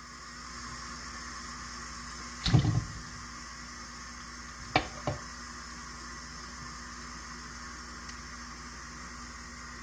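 Handling noise at a stainless steel sink over a steady hiss: one dull knock about two and a half seconds in, then two short sharp clicks a couple of seconds later.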